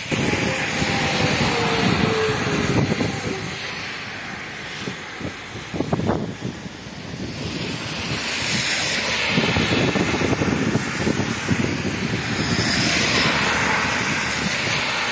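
Cars driving past on a rain-flooded road, their tyres hissing and splashing through standing water, swelling as each vehicle goes by. Near the start one passing car's note slides down in pitch.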